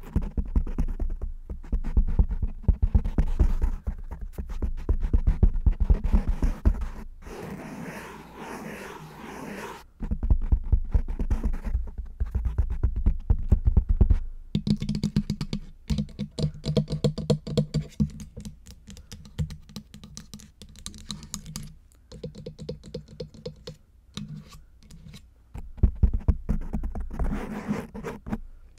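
Long fingernails tapping and scratching rapidly on a foam microphone windscreen, close to the mic, with dense clicks and deep muffled thumps. The strokes come in stretches that swell and ease, with a longer run of rubbing scratches about a third of the way in.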